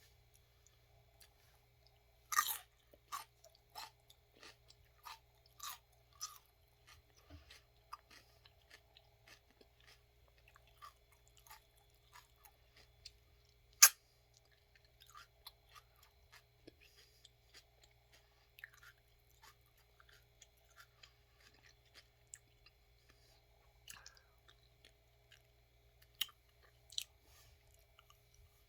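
A person bites into a crisp celery stalk about two seconds in and chews it with a crunch roughly every half second or so, the crunches growing fainter as the chewing goes on. One sharp click near the middle is the loudest sound.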